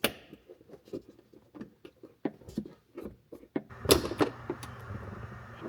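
Irregular small clicks and taps of plastic interior trim being handled and pressed back into place. A little under four seconds in there is a louder knock, and a steady low hum begins.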